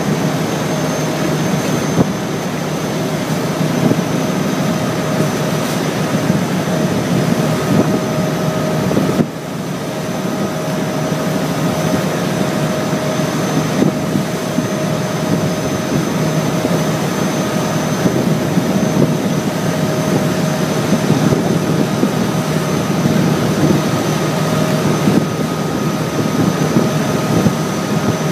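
River boat's engine running steadily at cruising speed, a constant drone with a thin high whine, over water rushing past the hull. The level drops briefly about nine seconds in.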